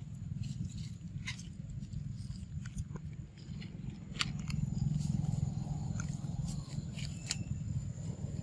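A macaque chewing a banana close by: scattered wet clicks and smacks over a steady low rumble.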